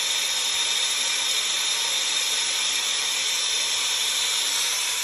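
Steady, loud hissing that holds the same level throughout, with a few faint high tones running through it.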